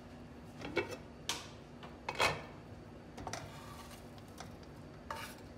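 Scattered kitchen clatter: about six short, irregular knocks and clinks of utensils and dishes being handled, over a faint steady hum.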